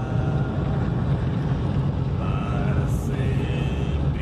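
Engine and road noise inside the cabin of a 1998 Fiat Uno on the move, a steady low drone.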